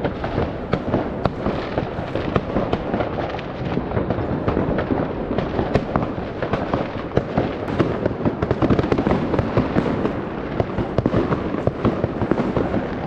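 Many fireworks going off at once: a dense, unbroken crackle of overlapping bangs and pops, with no single blast standing out.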